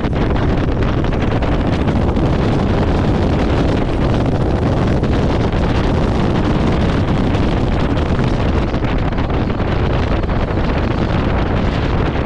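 Wind buffeting the microphone: a loud, steady rushing noise with no engine tone or other distinct sound standing out.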